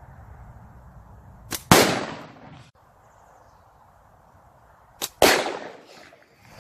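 Two loud bangs from 40 mm Firebird exploding targets hit by slingshot shots, each with a short sharp snap just before it and a ringing tail fading over about a second; the bangs come about three and a half seconds apart.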